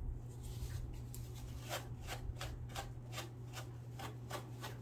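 Quick rubbing or brushing strokes, about three a second from about two seconds in, as lint and dust are cleaned out of a Singer sewing machine.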